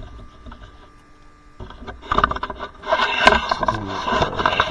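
Irregular rubbing and scraping noises with many small clicks, close to the microphone, starting about a second and a half in and getting louder about three seconds in, over a faint steady hum.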